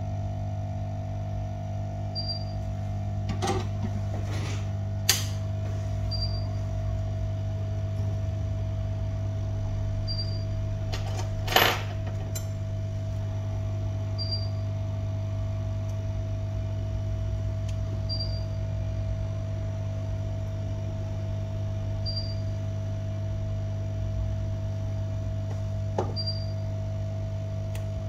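Steady electrical hum with a constant tone, a short high beep repeating about every two seconds, and a few sharp clicks, the loudest a little under halfway through.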